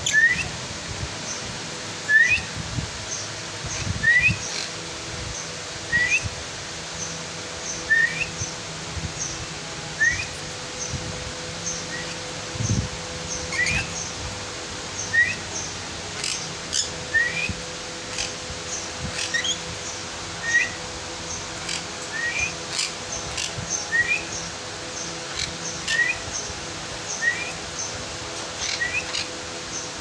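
Lorikeet giving short, rising whistled chirps, one about every one to two seconds, with a faint steady hum underneath.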